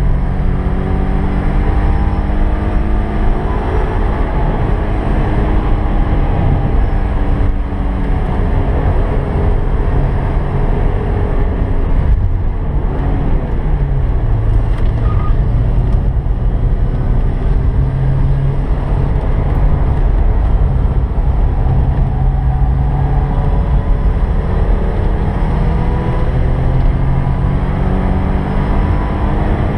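1986 Porsche 944's 2.5-litre four-cylinder engine being driven hard on track, heard from inside the cabin over heavy road and wind noise. The revs climb and fall with throttle and gear changes, dropping sharply about twelve seconds in before holding steadier and climbing again near the end.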